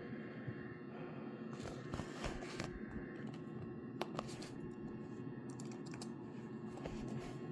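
Faint steady electrical hum with a few light, irregular clicks scattered through it, like keys or a mouse being tapped.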